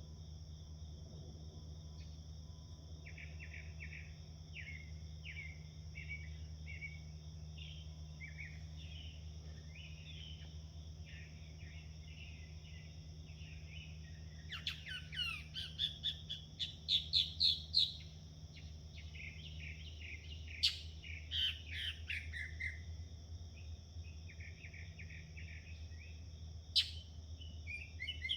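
Songbirds chirping and singing at dawn, with a louder run of rapid chirps about halfway through, over a steady high trill of crickets and a low steady hum. Two sharp clicks, one about two-thirds of the way in and one near the end.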